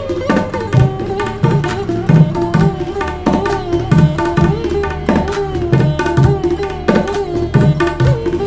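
Semi-tabla-style kendang with flat 'petir' tension rings played by hand in a steady, quick rhythm. Deep bass strokes bend in pitch, mixed with sharper, ringing strokes on the tuned head.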